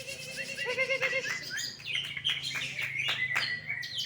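Green leafbird (cucak ijo) singing a fast, varied run of chirps, short trills and sweeping whistles, with a faint steady low hum underneath.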